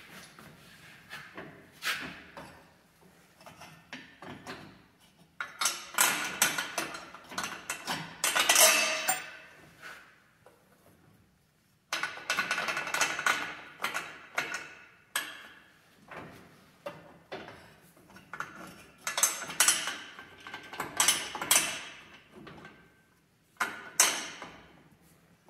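Hand ratchet wrench clicking in several quick runs while a bolt is tightened into a steel axle bracket, with metal hardware clinking in between.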